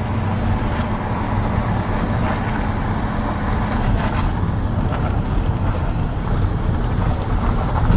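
Car driving at a steady pace: a continuous low engine hum with road and tyre noise, and a slight change in the engine tone about halfway through.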